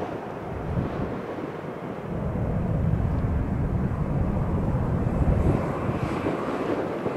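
Jet engines of a Boeing 737-800, twin CFM56 turbofans, running as the airliner taxis. A low rumble grows louder about two seconds in and then holds steady.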